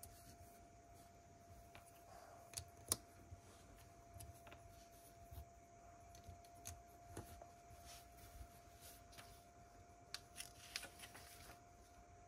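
Lego pieces being handled and snapped together: faint scattered clicks and light rattles, the sharpest click about three seconds in and a quick cluster of clicks near the end, over a faint steady hum.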